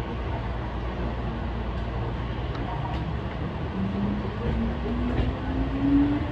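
Hankyu electric train heard from inside the cab as it pulls away: a steady low rumble of the running gear, joined about four seconds in by a motor whine that rises slowly in pitch as the train picks up speed.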